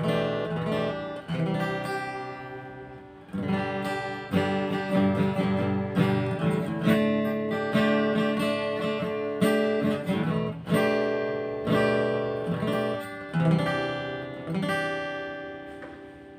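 Acoustic guitar strummed in full chords, about a dozen separate strums, each left to ring and decay, the last one fading out near the end. The chords are strummed plainly rather than played as a tune, to show off the guitar's tone.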